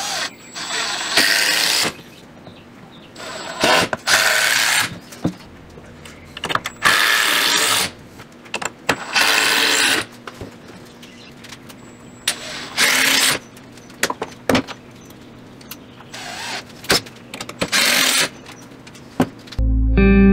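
Cordless impact driver running screws into 2x4 lumber in repeated short bursts, each about a second long, with pauses between. Guitar music starts in the last second.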